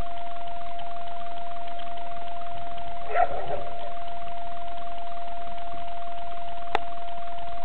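A steady high-pitched tone at an even level, with a short squeak about three seconds in and a single sharp click near the end.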